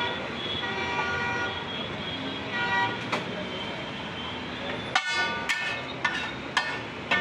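Steady street noise with car horns tooting for the first few seconds. About five seconds in, a steel spatula starts striking the large flat tawa griddle: sharp, ringing metallic clangs about two a second.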